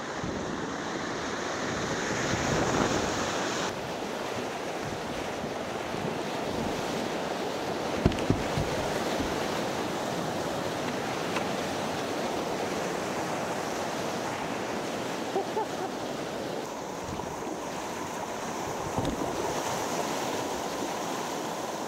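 Whitewater rapids rushing and splashing close around a kayak, heard from a camera on the boat's deck, with a couple of sharp knocks about eight seconds in and another near the end.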